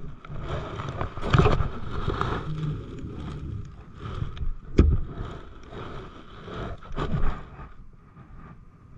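Handling noise from a body-worn camera: clothing rustle and scraping as it rubs against a jacket, with three louder knocks, about one and a half, five and seven seconds in.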